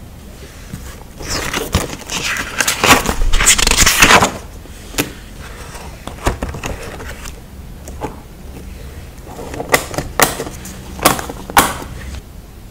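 Handling of sticker sheets and paper: a stretch of crinkly rustling with many small clicks starting about a second in and lasting some three seconds, then scattered taps and short scraping strokes.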